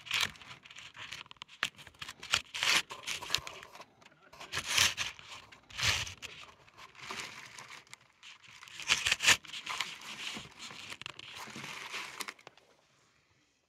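Handling noise: a sleeve and hand rubbing and scraping over the phone's microphone in irregular scratchy, crinkling bursts that stop suddenly near the end.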